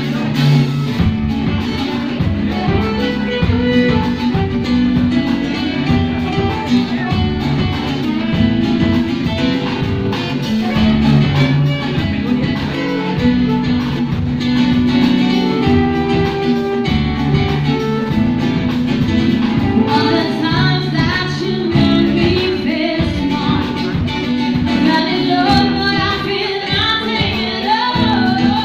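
A live band playing a song, with a woman singing over drums, keyboard and a steady bass line.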